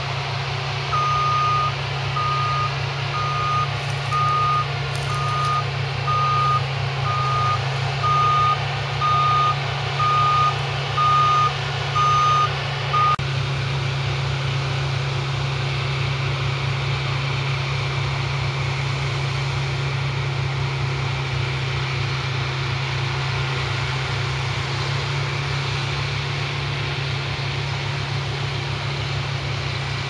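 New Holland CX8090 combine harvester running steadily at work, with a reversing alarm beeping about once a second for roughly the first dozen seconds before it stops, leaving the machine's steady hum.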